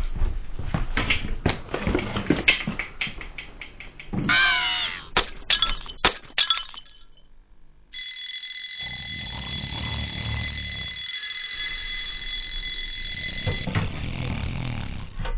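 A rapid run of knocks and crashes with a short wavering squeal in the middle. After a brief pause, a steady alarm tone rings for about six seconds, with a low rumble under it, then cuts off near the end.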